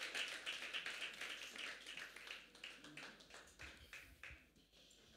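Congregation applauding, the clapping thinning out and dying away over the first four seconds or so.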